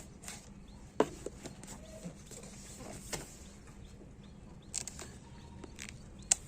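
Scattered sharp taps and clicks of a cardboard box and packaging being handled while a speaker is unboxed, the loudest about a second in and just before the end, over a low steady hum.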